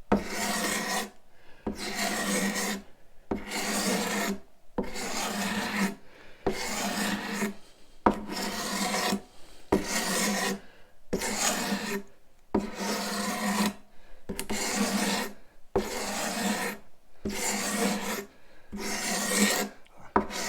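Hand scraper being pulled across hard wood in repeated strokes, about one every second and a half, each a scratchy rasp lasting about a second. The scraper is skewed at an angle and drawn straight back to take off fine shavings and smooth the surface.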